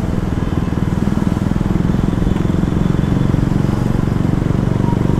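KTM Duke's single-cylinder engine running steadily as the motorcycle cruises at low road speed, an even low-pitched pulsing with no change in revs.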